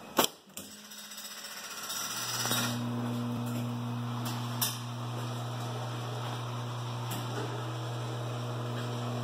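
Wurlitzer 1500 jukebox: two sharp clicks of its selection buttons being pressed, then a steady electric hum that comes up about two seconds in and holds, with one faint click partway through.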